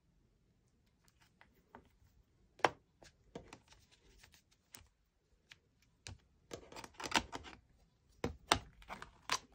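Light clicks and taps from handling a clear acrylic stamp, small round magnets and a stamping platform's hinged acrylic lid: scattered single clicks at first, then a busier run of clicks and knocks in the last three seconds as the lid is swung over.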